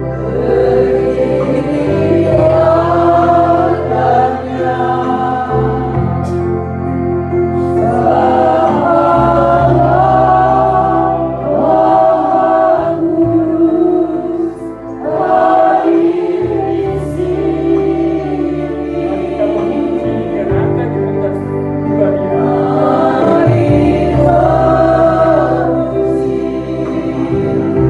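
A congregation singing an Indonesian-language Christian praise song together, led on a microphone, over an instrumental backing with held bass notes that change every couple of seconds.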